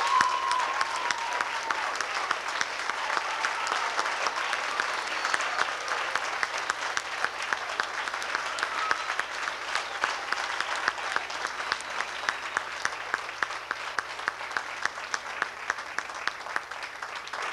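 Audience applauding. The loose clapping settles into a steady unison beat of about three claps a second from about halfway through.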